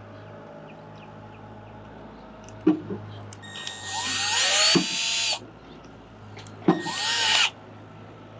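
Power drill driving screws for an RV door striker plate, in two runs, the first longer, each whining up and back down, with a few short knocks between.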